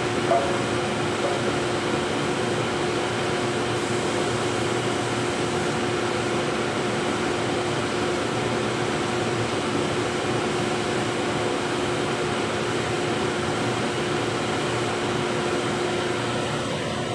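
Steady drone of running printing-plant machinery, with a constant hum tone over it. A brief knock sounds just after the start.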